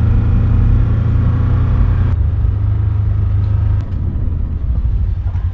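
Kawasaki Mule side-by-side engine running while driving, a steady low drone. The engine note eases off about two seconds in and drops again near four seconds in as it slows down.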